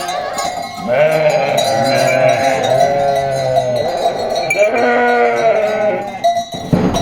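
A flock of sheep bleating, many overlapping calls one after another without a break.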